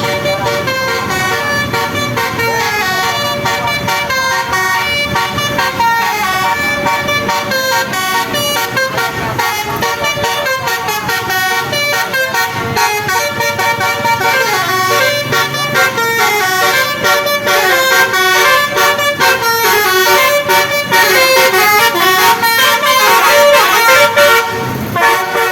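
Bus 'basuri' musical horn playing a tune, a long run of quick stepping notes that gets louder toward the end.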